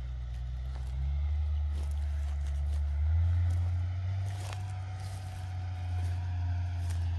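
Low, steady rumble of a distant tractor pulling a seed drill across a field, growing louder about a second in and again about three seconds in.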